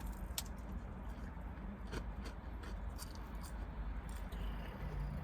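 Close-miked eating: soft chewing with a few scattered sharp little clicks.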